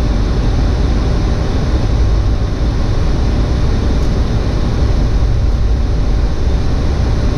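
Steady cockpit noise of an airliner: an even rush of air and engine rumble, deep and unchanging, with no voices.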